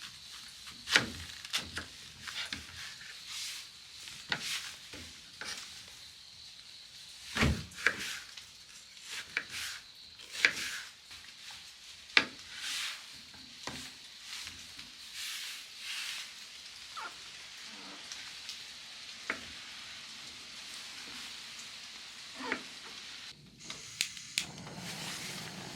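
Steady sizzling with scattered sharp clicks and pops.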